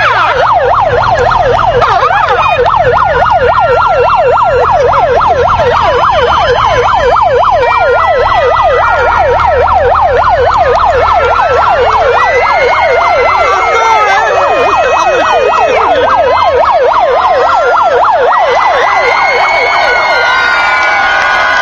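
Police escort siren in a fast up-and-down yelp over a low vehicle engine rumble. The siren fades after about seventeen seconds, leaving a cheering crowd.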